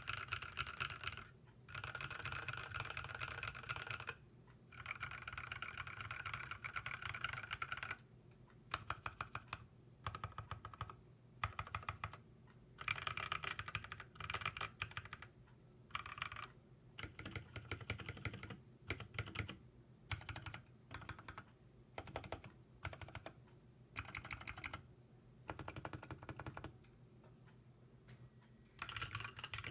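Typing on a KBD75 mechanical keyboard with NovelKeys Cream linear switches, fitted with lubed 60 g springs and PBT Cherry-profile keycaps. Quick runs of keystrokes are broken by short pauses.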